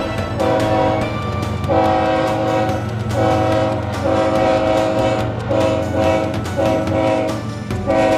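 Nathan Airchime K5LA five-chime horn on a CSX EMD GP40-2 locomotive sounding a string of blasts, short and long, about eight in all, over the steady rumble of the locomotives' diesel engines as they roll by.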